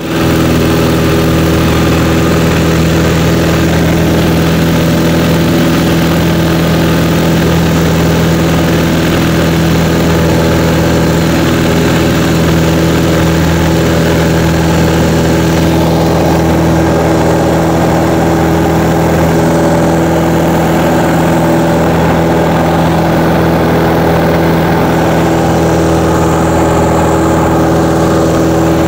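Single-engine light airplane's piston engine and propeller running steadily in flight, heard from inside the cockpit.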